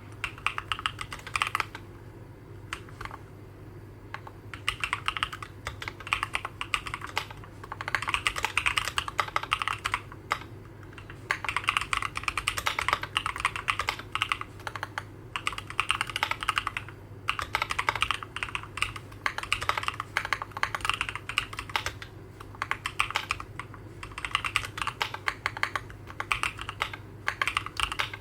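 Typing on a Keychron Q11 mechanical keyboard with Durock Black Lotus linear switches and ABS single-shot keycaps, in runs of rapid key clacks broken by short pauses. The board is sound-dampening modded, and the keystrokes sound light.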